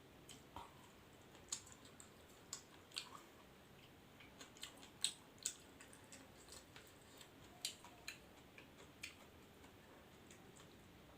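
Close-miked eating: scattered sharp clicks and crunches of chewing and biting, irregularly spaced against a quiet background, the loudest about halfway through.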